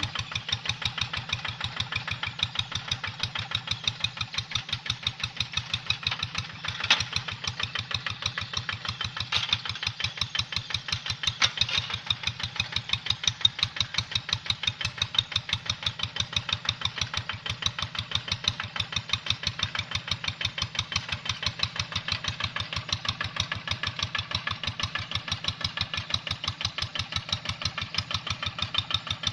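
Quick Boxer 1000 hand tractor's Kubota engine running steadily with an even, rapid chugging beat as it plows dry, hard ground.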